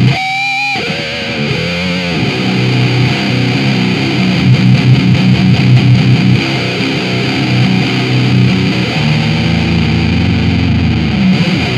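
Distorted electric guitar played through a high-gain Orange amplifier, pushed by a breadboarded BS170 MOSFET clean boost. A wavering, vibrato-bent note comes in the first second, then the playing goes on without a break.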